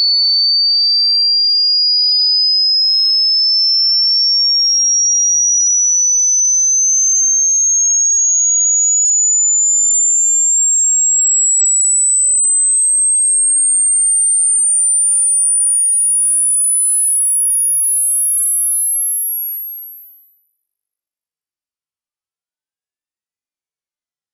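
Electronic pure-tone hearing-test sweep: a single thin tone that starts as a high whistle and climbs slowly and steadily in pitch to the very top of human hearing. It is used to find the highest pitch the listener's ears can still detect.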